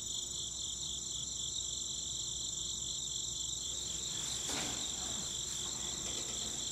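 Crickets chirping: a steady, high-pitched pulsing trill, with a faint brief rustle about four and a half seconds in.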